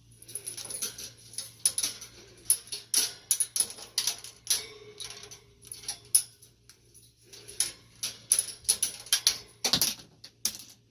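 Irregular metallic jingling and rattling, many quick clicks with a short lull about seven seconds in.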